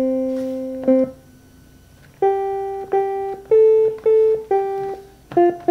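Electronic instrument notes from a Hocokiki hexagonal music-module kit, triggered by pressing its buttons and played through a portable speaker: a held note, a short blip, about a second of quiet, then a run of single notes about half a second apart, quickening near the end.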